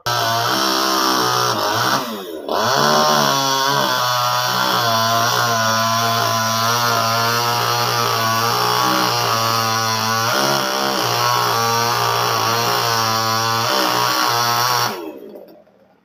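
Top-handle chainsaw running at high revs, its pitch wavering as it cuts. The revs dip briefly about two seconds in, and the saw dies away near the end.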